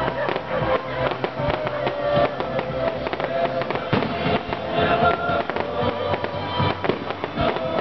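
A dense volley of fireworks: rapid, continuous crackling and popping from many shells and comets bursting in quick succession, with music playing underneath.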